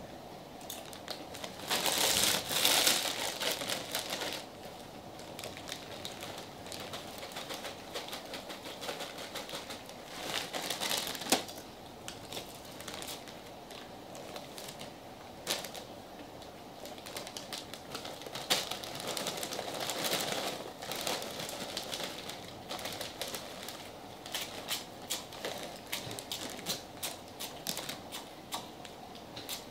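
Snack-bag crinkling and chips being crunched in bursts, with a series of sharp clicks from a metal spoon against a plastic cup near the end.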